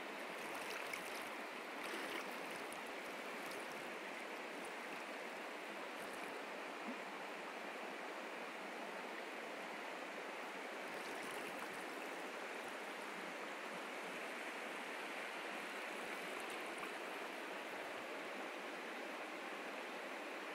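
Flowing river water making a steady, even noise.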